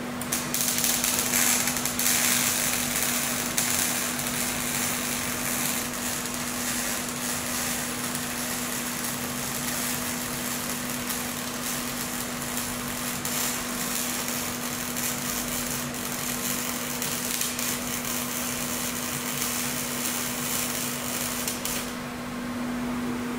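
MIG/MAG welding arc from a Böhler Uranos 2000 SMC crackling steadily as it bridges a widening gap in 3 mm steel plate. It runs at about 80 amps and 17 volts with the inductance turned down to focus the arc. The arc cuts out near the end, leaving a steady low hum that runs underneath throughout.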